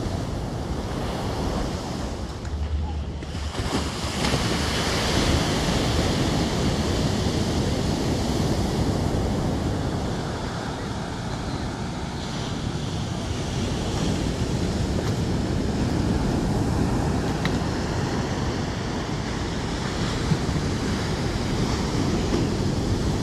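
Ocean surf breaking and washing up a sandy beach in a steady rush, with wind buffeting the phone's microphone.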